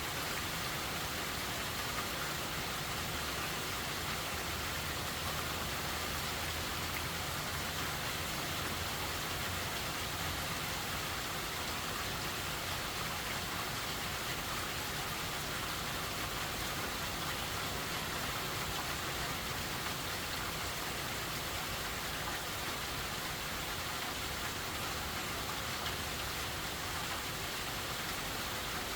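Hurricane rain falling steadily, an even hiss without pauses. A faint low drone runs underneath, a little stronger between about six and twelve seconds in.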